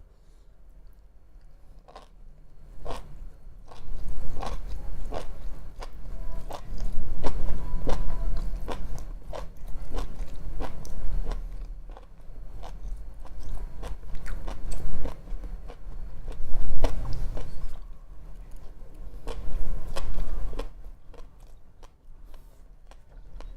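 Close-miked chewing of sushi: a run of wet, smacking mouth clicks over a low rumble. It starts about two seconds in, comes in louder swells, and dies away near the end.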